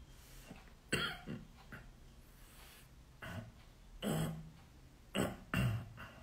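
A man clearing his throat and coughing in several short bursts, the first about a second in and two close together near the end.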